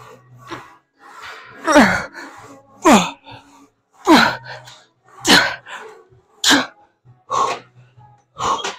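A man's forceful exhales and grunts, about seven in a row, roughly one a second, several dropping in pitch: hard breathing out with each rep of a heavy leg press.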